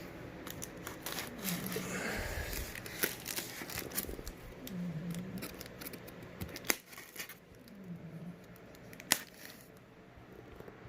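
A cardboard shipping box being cut and torn open: tape and cardboard slitting, tearing and crinkling, with scattered clicks and two sharp knocks in the second half.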